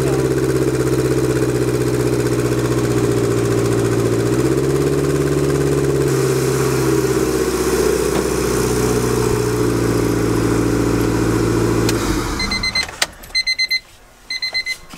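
Honda B16A2 four-cylinder with four turbochargers idling steadily on a test run to push oil through the new turbo feed lines, with small shifts in engine speed, then switched off about twelve seconds in. A run of short electronic beeps follows as the engine falls silent.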